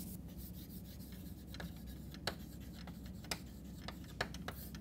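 Chalk writing on a blackboard: faint scratching with a handful of sharp, separate taps of the chalk against the board, over a low room hum.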